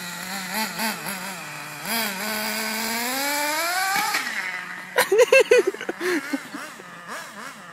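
Remote-control car's motor revving, its pitch wavering and then climbing steadily for a couple of seconds. About five seconds in there is a sharp knock, followed by quick, uneven bursts of revving that die away.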